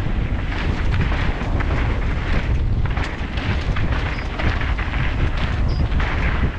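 Wind buffeting a helmet-mounted camera's microphone, with a heavy rumble underneath from a mountain bike rolling fast down a dirt trail and scattered sharp clicks and knocks from the bike rattling over the ground.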